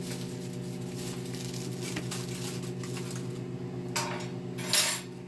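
Microwave oven running with a steady hum. Near the end, tableware clatters twice briefly.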